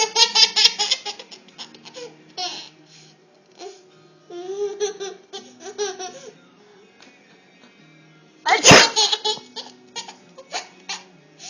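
A young child laughing in quick bursts, with gleeful squealing vocal sounds in the middle. About eight and a half seconds in, a loud sudden sneeze sets off another run of giggles.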